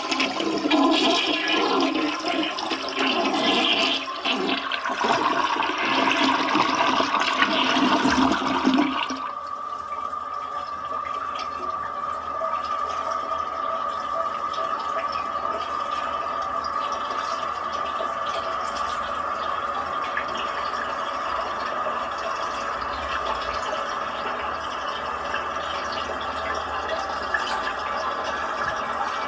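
Toilet flushing: a loud rush of water for about nine seconds, then a quieter steady hissing as the tank refills.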